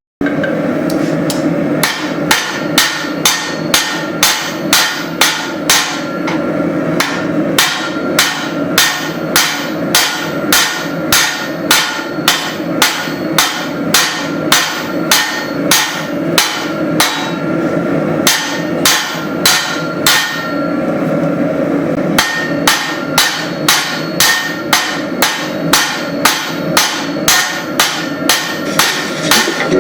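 Hand hammer striking hot leaf spring steel on an anvil, about two blows a second with a ringing note on each strike, pausing briefly about two-thirds of the way through. A steady background noise runs underneath.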